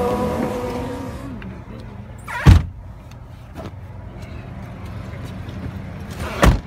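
Two loud thumps about four seconds apart, with a fainter knock between them: car doors shutting as the passengers get out. Music fades out in the first second, over a low steady car rumble.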